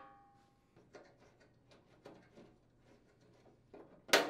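Faint scattered clicks and handling noise of retaining knob screws being turned out by hand from a chipper shredder's discharge chute, with a single louder knock near the end.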